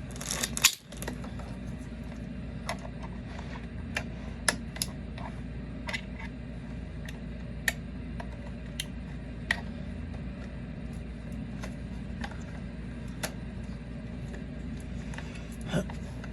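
Scattered light clicks and taps, with a louder clatter about half a second in, over a steady low hum: hand tools and metal fittings being worked during reassembly of a gas water heater's control valve and connections.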